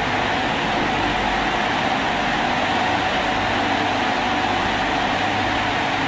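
Coupled Alstom Régiolis regional trains rolling slowly past at a platform, with a steady engine-like hum that stays even throughout.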